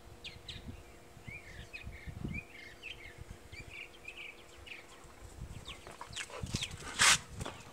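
Small birds chirping repeatedly in short rising and falling calls, over a low irregular rumble on the microphone. One short, loud, sharp sound comes about seven seconds in.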